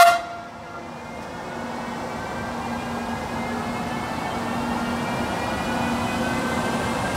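Trenitalia E402B electric locomotive pulling a passenger train away from a standstill. Its traction equipment gives a whine that rises slowly in pitch as it accelerates, over a steady hum and running noise that grows louder. A sudden, brief loud sound right at the start.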